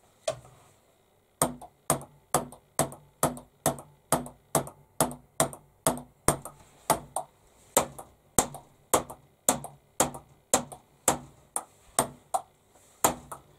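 A table tennis ball in a fast, steady rally on a mini table tennis table: sharp clicks of the ball off the rubber paddles and the tabletop, several a second in an even rhythm. It starts about a second and a half in.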